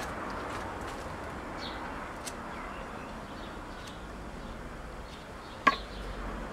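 Faint clicks of a blade trimming the corners off a wooden twig whistle's mouthpiece, with one sharp, loud click near the end, over a steady background hiss.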